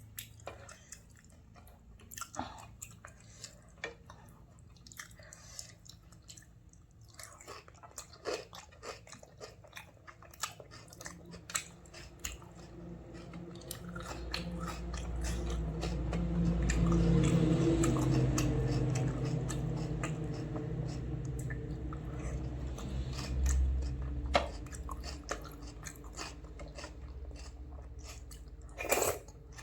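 Close-up chewing and mouth sounds of someone eating a meal, with many short clicks and small smacks. Around the middle a low hum swells up and then fades away.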